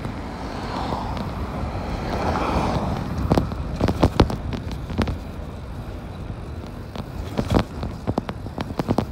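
E-bike rolling on a concrete path with steady low wind and road rumble and a swell of hiss over the first few seconds, then a string of sharp knocks and rattles from about three seconds in as the bike jolts over the pavement joints.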